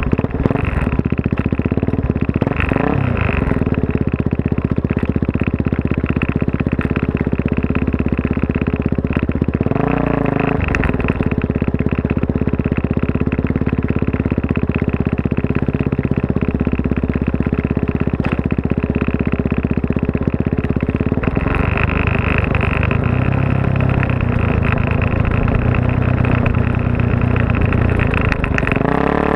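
Suzuki DR-Z400S single-cylinder four-stroke, bored out to 440 and fitted with a full Yoshimura off-road exhaust, running hard on a dirt trail. The engine note shifts up and down with throttle and gear changes and gets stronger about two-thirds of the way through as the throttle is opened further.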